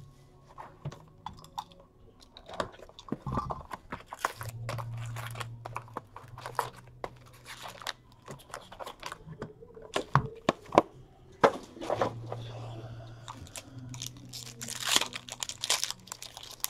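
A cardboard hockey card box and its foil card packs being handled and opened by hand: crinkling and tearing of wrappers and cardboard, with many small clicks and taps.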